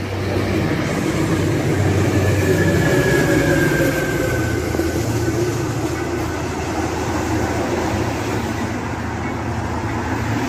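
Caltrain push-pull passenger train passing, its EMD F40PH diesel locomotive pushing at the rear: a steady engine drone under the rumble of the bilevel cars, loudest a few seconds in and easing slightly as the train moves away.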